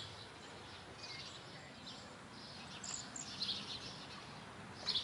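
Faint birds chirping a few short calls over steady outdoor background noise.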